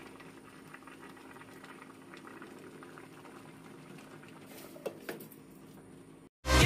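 Pot of sinigang soup with shrimp, crab and napa cabbage bubbling steadily at a boil. About five seconds in come two sharp clinks as the glass lid is set back on the stainless pot.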